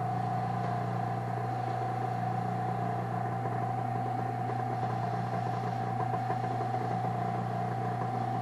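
Wood lathe running steadily, its motor giving a constant whine over a low hum.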